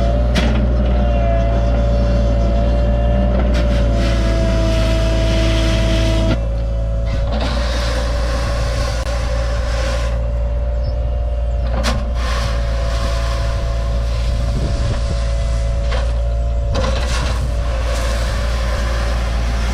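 Diesel engine of a Cat 303.5 mini excavator running steadily under work, with a steady whine over the engine hum and a few sharp clanks. The sound drops and changes character suddenly about six seconds in.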